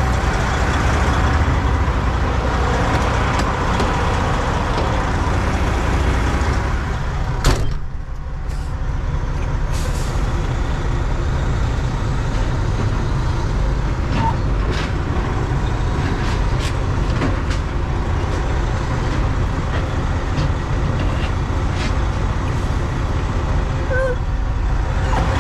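Western Star semi truck's diesel engine running steadily at low revs, with a single sharp knock about seven and a half seconds in and a few faint ticks afterwards.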